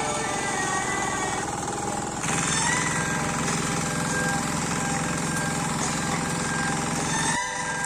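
A small engine running steadily with a rapid, rattling pulse, its sound changing abruptly about two seconds in and again just before the end.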